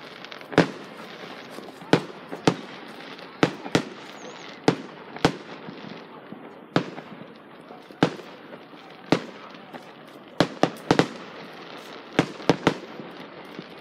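Fireworks going off: aerial shells bursting in a string of sharp bangs at irregular intervals, about seventeen in all, some coming in quick clusters, over a steady background hiss.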